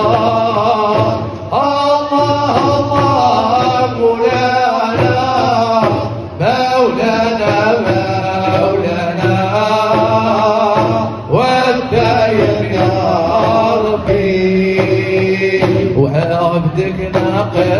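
A Hamadsha Sufi ensemble of men chanting devotional verses together in long held, shifting phrases, a Moroccan Sufi chant, over a steady low tone.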